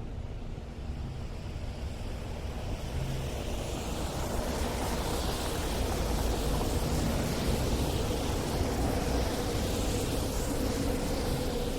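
City street traffic on snowy streets: low engine rumble with tyre hiss that swells over the first few seconds as vehicles pass, and a steady engine drone coming in during the second half.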